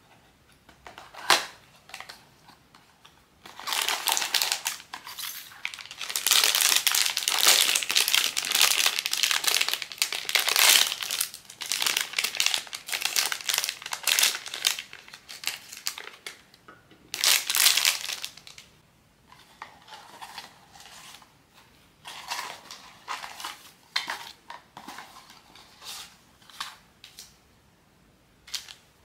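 Blind-box packaging crinkling as it is handled and opened by hand: a sharp click about a second in, then a long stretch of dense crinkling, and sparser crinkles and clicks in the last part.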